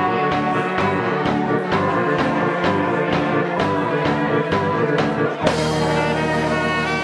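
Live funk band playing: brass and keyboard over a steady drum beat, the snare hits sharp and regular. About five and a half seconds in the drum strokes stop and the band moves into held chords.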